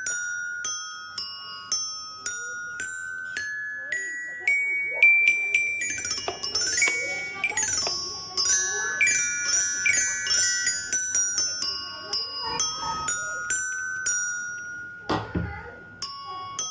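A chiming melody of struck bell-like notes in the manner of a glockenspiel or music box, a few notes a second, with faint voices underneath in the middle and a brief thump near the end.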